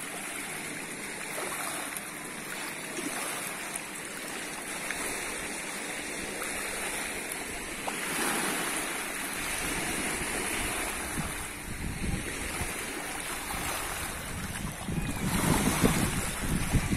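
Small waves lapping and washing over a muddy, stony reservoir shoreline. Gusts of wind buffet the microphone, growing stronger near the end.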